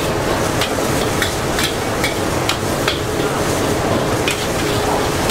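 Metal spatula scraping and clinking against a wok, about two strokes a second at first and fewer later, over the steady sizzle of egg and noodles frying.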